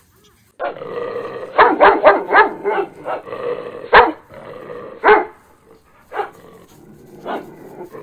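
A dog barking. After a short run of sound, a rapid string of sharp barks comes about a second and a half in, then single barks spaced about a second apart.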